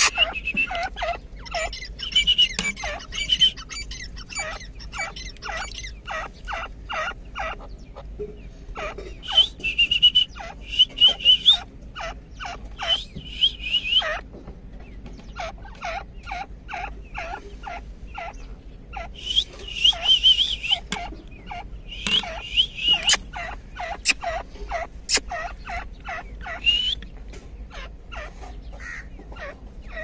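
Grey francolins calling: a long run of short, sharp notes at about three a second, broken every few seconds by bursts of high, quavering chatter.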